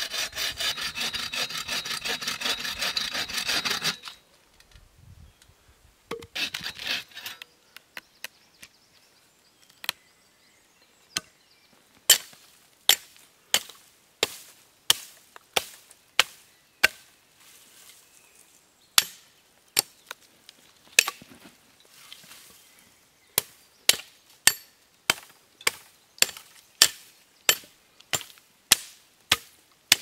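Dry deadwood being sawn in quick strokes for about four seconds, with a short burst of sawing again a few seconds later. Then, from about twelve seconds in, an axe chopping the dry wood in sharp, evenly spaced strikes, about one a second.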